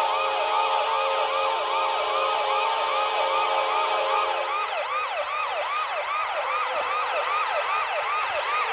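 Hockey goal horn sounding with a rapidly repeating siren-like yelp, falling sweeps about three a second. The steady chord of the horn cuts off about halfway through, and the yelping siren carries on alone.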